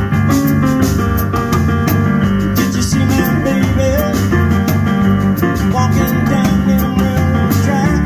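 Live blues band playing an instrumental passage: Yamaha CP40 Stage keyboard and electric upright bass over a steady drum beat.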